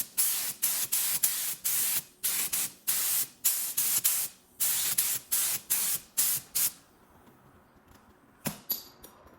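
Clear lacquer sprayed in short hissing bursts, about fourteen in quick succession, coating a restored headlight lens. After the spraying stops there is one sharp click, then two lighter ticks.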